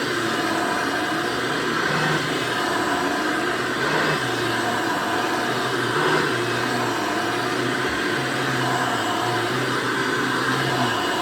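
1993 Hoover Elite U4617 upright vacuum cleaner running steadily, with a low hum that wavers slightly in pitch about once a second. Its motor is one the owner believes was replaced, since it no longer sounds as it did when he got it.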